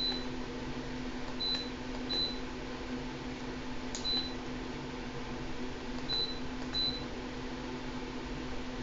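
A 240-volt electric shop heater running with a steady electrical hum and fan noise. Six short high electronic beeps come at uneven intervals over it, like the heater's controls being set by button presses.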